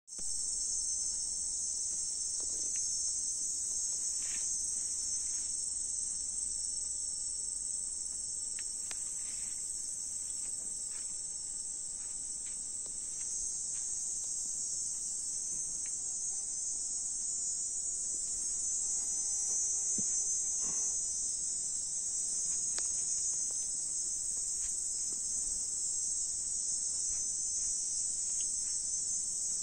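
Steady high-pitched insect chorus, a continuous chirring of crickets.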